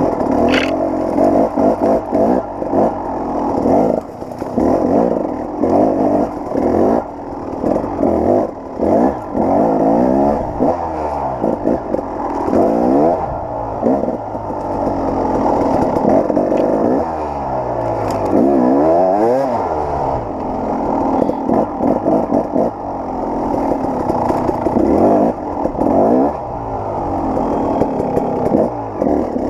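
KTM 300 XC-W two-stroke dirt-bike engine revving up and falling back over and over as it climbs a steep, rocky trail, with clatter and knocks as the bike works over the rocks.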